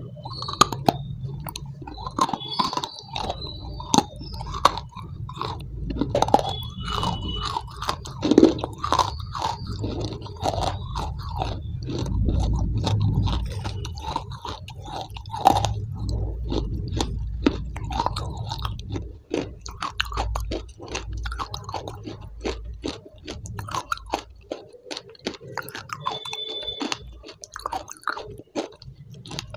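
Close-miked chewing of a spoonful of soft brown food, with frequent sharp crunches and mouth clicks.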